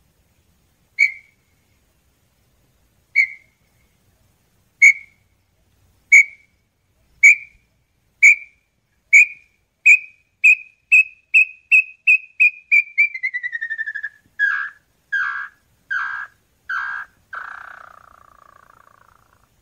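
Small-billed tinamou (inhambu-chororó) singing: clear whistled notes, first about a second apart, then faster and faster into a rapid trill that falls in pitch, ending in five longer, lower notes.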